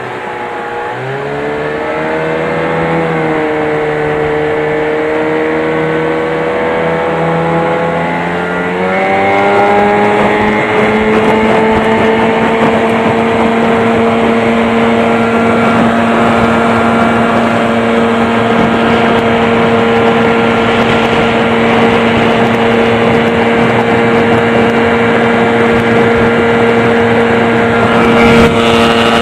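1990 Evinrude 15 HP two-stroke twin outboard motor running at high revs, pushing a jon boat. Its pitch dips about a second in, wavers, then climbs about nine seconds in and holds steady.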